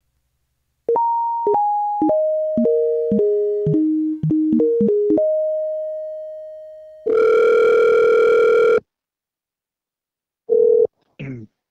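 A short melody of about ten struck, piano-like notes, mostly stepping down in pitch, the last one held. Then a telephone ringback tone rings once for about two seconds, and a second ring is cut short by a click as the call is answered.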